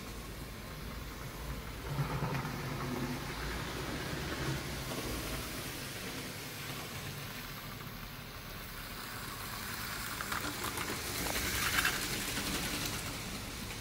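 Model railway trains running on the layout: a steady rumble and whirr of small motors and wheels on track. It swells to its loudest clatter late on as a rake of open wagons passes close by.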